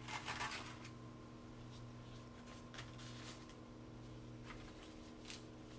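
Faint rustling and a few light clicks of gloved hands handling a plastic-wrapped Foley catheter kit, over a steady low hum.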